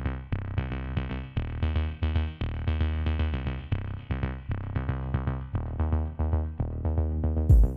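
Electronic background music: synthesizer notes over a drum-machine beat.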